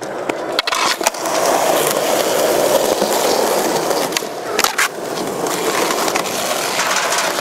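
Skateboard wheels rolling on smooth concrete, a steady gritty rolling noise, with a few sharp clacks of the board about a second in and again near the middle.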